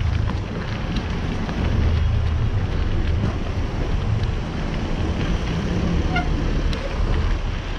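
Wind noise on the microphone over a steady low rumble of car traffic, heard while moving slowly past a queue of cars.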